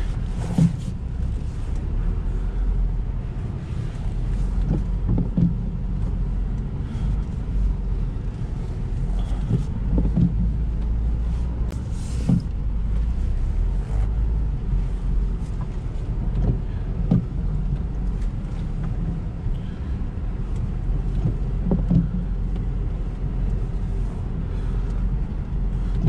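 Lada Niva Travel's 1.7-litre four-cylinder engine running steadily at low speed as the car crawls over rough forest ground, with a low rumble and occasional short knocks and thumps from the bumpy going.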